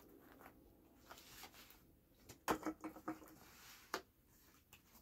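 Faint clicks and rustles of someone chewing pizza and handling cardboard pizza and breadstick boxes, with a short cluster of louder clicks about halfway through and another about a second later.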